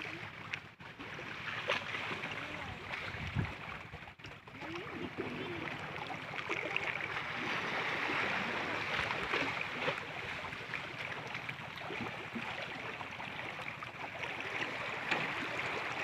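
Shallow water flowing over rocks, a steady rushing with the water washing against a boulder.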